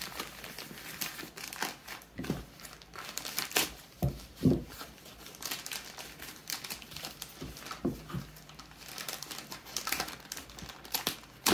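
Plastic poly mailer crinkling and rustling as it is handled and opened, with irregular crackles and a couple of soft thumps about four seconds in.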